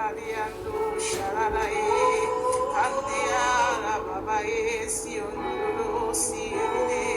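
Slow, soft worship music: a voice singing a wordless, wavering melody over steady held chords.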